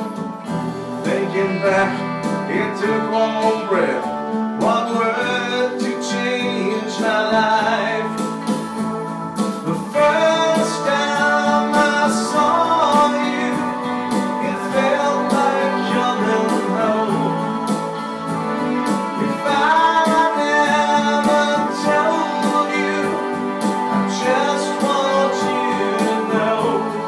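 Pop dance-band music with guitar and a singing voice.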